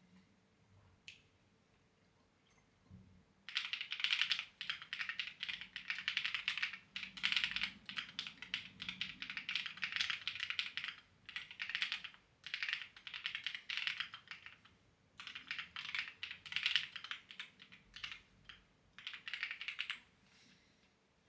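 Clacky computer keyboard being typed on in fast runs of keystrokes, starting a few seconds in and broken by brief pauses, with a faint steady hum underneath.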